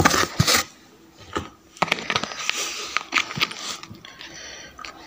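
Handling noise: irregular clicks and scrapes of plastic food containers being moved and the phone being handled close to the microphone.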